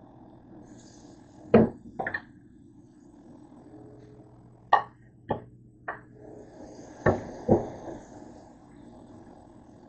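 Scattered knocks and clatters of kitchenware being handled, about seven sharp strikes spread irregularly, the loudest near 1.5 s and around 7 s.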